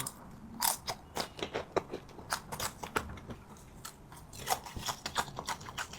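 Crunchy food being bitten and chewed close to the microphone: a string of irregular sharp crunches and crackles.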